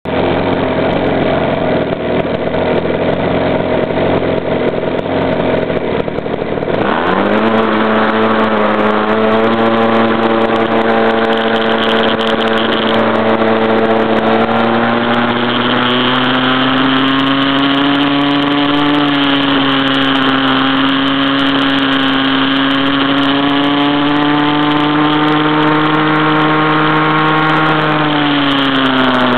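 Close-up sound of a CAG pocket bike's small two-stroke engine. It idles, then revs up sharply about seven seconds in as the bike pulls away. It holds a high, steady buzz at speed, creeping slightly higher in pitch, and near the end drops as the throttle is eased off.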